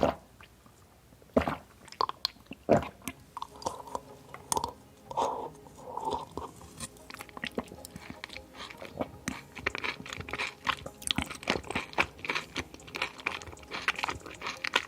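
Close-miked chewing and crunching of food: sparse single bites at first, turning to dense, crackly crunching about halfway through.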